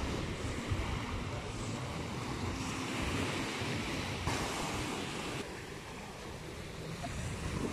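Small sea waves breaking and washing up the beach, a steady rushing surf, with wind rumbling on the microphone.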